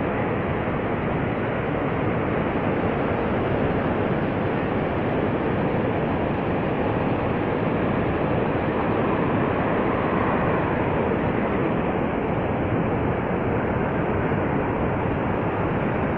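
Steady roar of Niagara Falls: a constant wash of falling and rushing water.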